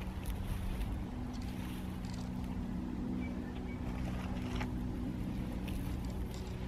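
Steady low drone of a distant engine, with a few faint crackles from a dry grass and bark tinder bundle being handled.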